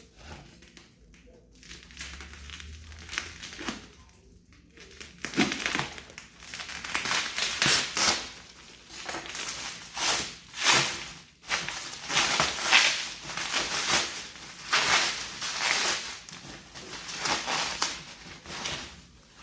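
Plastic packaging and bags crinkling and rustling in irregular bursts while items from a delivery are unpacked; fairly quiet for the first few seconds, then steady handling.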